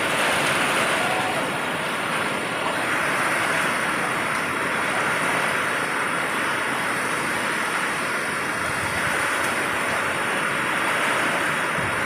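Heavy storm rain falling steadily on corrugated metal roofing, a dense, even hiss and patter.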